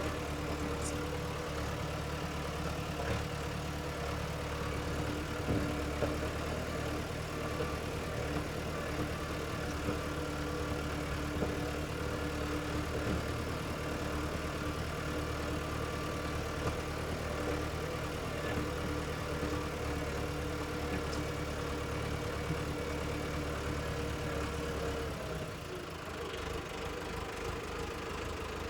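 Diesel tractor engine idling steadily with a low rumble. About 25 seconds in, the low rumble drops away and the engine note changes.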